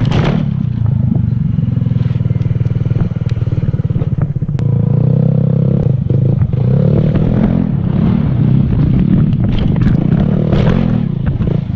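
Gearless scooter's small engine running steadily during stunt riding on dirt, with clatter. There is a brief rasping scrape at the start and more scraping near the end.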